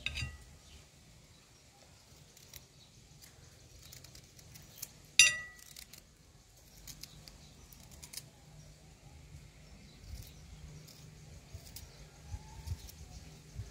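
Small knife slicing peeled fresh ginger root held in the hand, with faint scattered cutting clicks as pieces drop onto a ceramic plate, and one sharp ringing clink about five seconds in.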